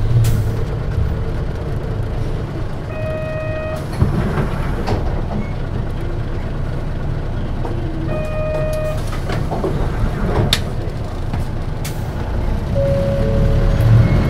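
Steady low rumble of a 1997 Mitsubishi Fuso Aerostar KC-MP717P city bus, heard from inside the cabin. Two short electronic beeps come about three and eight seconds in, and a lower steady tone sounds near the end, with a few light knocks in between.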